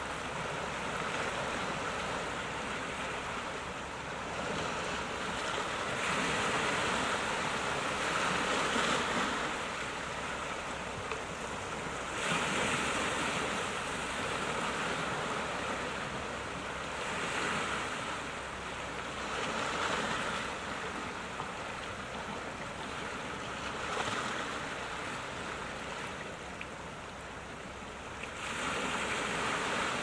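Small sea waves washing onto a rocky shore, a steady rushing hiss that swells and eases every few seconds.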